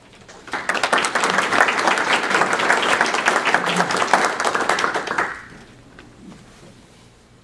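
Audience applauding, a dense patter of many hands clapping. It starts about half a second in, lasts about five seconds and dies away quickly.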